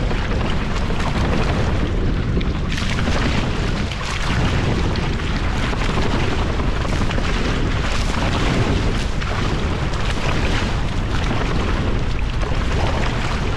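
Steady, loud wind buffeting the microphone on a sailing catamaran, a constant low rumble and rush with no break.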